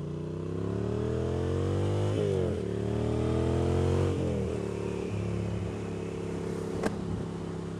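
Ducati Monster 750's air-cooled V-twin accelerating through the gears: the engine pitch rises, drops at a shift about two seconds in, rises again, drops at a second shift about four seconds in, then holds steady at cruise. A single sharp click sounds near the end.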